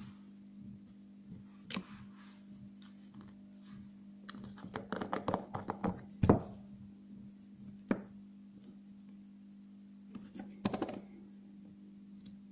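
Small plastic jars and their screw-on plastic lids clicking and knocking against a table as they are handled and closed. A run of quick clicks about five seconds in ends in one sharp knock, with single clicks near eight seconds and another short run near eleven seconds, over a steady low hum.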